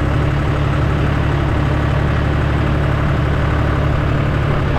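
Farm tractor engine idling, a steady low drone that holds the same pitch throughout.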